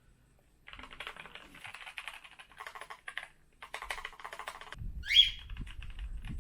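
Typing on a NuPhy Air60 V2 low-profile mechanical keyboard: rapid key clacks in runs of about a second with brief pauses, starting just under a second in and growing softer after about five seconds. About five seconds in, a short rising high-pitched squeak, the loudest sound, stands out over a low rumble.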